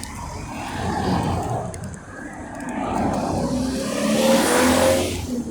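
Road traffic passing close by: one vehicle swells past about a second in, then a louder one builds to a peak around four to five seconds in and falls away near the end.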